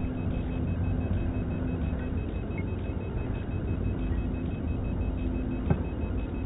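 Milling machine running steadily under power feed, a continuous mechanical hum with a pitched whine that fades in and out, and one sharp click near the end.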